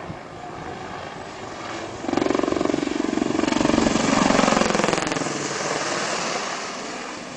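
AH-64 Apache attack helicopter passing close by. Its fast rotor chop and engine noise swell suddenly about two seconds in, are loudest around four to five seconds, then fade away.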